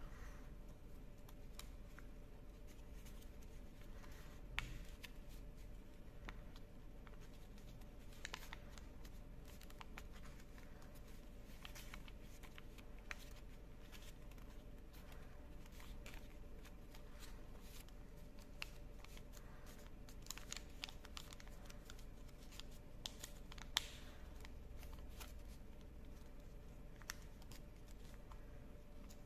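Origami paper rustling and crinkling faintly as hands fold and crease it, with scattered small clicks of the paper, the sharpest about five seconds in and about three-quarters of the way through. A faint steady low hum runs underneath.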